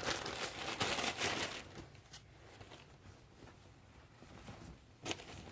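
Package wrapping being rustled and crinkled by hand for the first couple of seconds, then quieter handling, with a single sharp knock about five seconds in.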